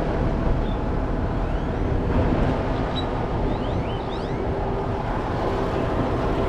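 Truck engine running steadily with a deep rumble, a few faint high chirps over it around the middle.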